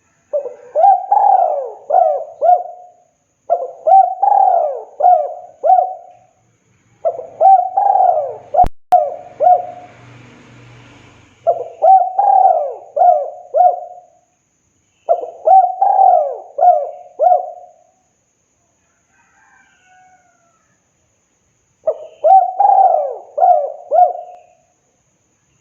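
Spotted dove cooing: six repeated phrases of four or five mellow notes each, a few seconds apart. A single sharp click sounds between the third and fourth phrases, followed by a faint low hum.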